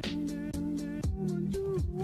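Background music with a steady beat: quick regular ticks, held notes, and deep bass notes that slide down in pitch.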